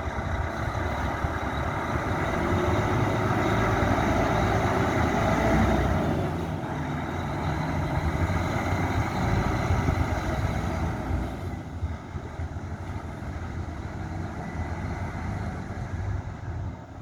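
Volvo FH 540 truck's 13-litre straight-six diesel engine rumbling, growing louder over the first few seconds and dropping back about eleven seconds in.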